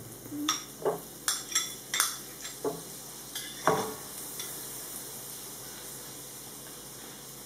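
Cubes of butter dropping into hot olive oil in a nonstick frying pan, a string of short knocks and clicks over the first few seconds. Then the butter melts with a steady sizzle.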